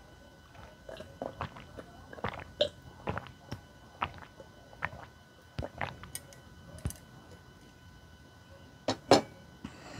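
Close-miked gulping and swallowing while drinking from a glass: short, sharp swallows come about once a second, irregularly, with a louder pair near the end.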